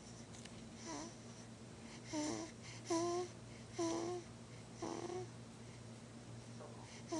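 Soft, short squeaky vocal noises, about one a second, each a brief pitched squeak with a breathy hiss, made on the breath like little grunts in sleep.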